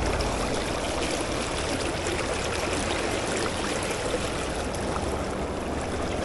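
Creek in high water after rain, flowing fast: a steady rush of running water.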